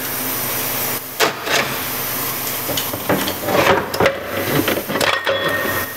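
Steel parts of a 700R4 automatic transmission clinking and scraping as the lower planetary gear set is worked out of the case by hand, with a few sharp knocks about a second in and more clatter between about three and five seconds, over a steady hiss.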